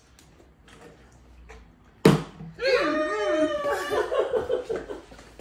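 A half-full plastic water bottle, flipped onto a wooden coffee table, lands upright with a single sharp thud about two seconds in. Laughter and excited voices follow.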